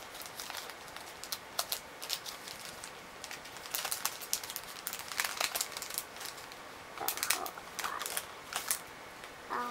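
Paper toy banknotes rustling and crinkling as they are sorted by hand, with irregular short crackles and clicks.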